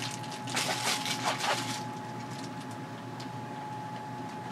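Plastic poly mailer bag crinkling as it is handled for about the first two seconds, then settling to a faint steady tone.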